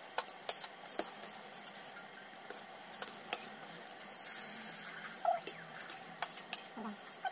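Metal spoon and fork clinking and scraping on stainless steel plates while eating, in scattered sharp clicks.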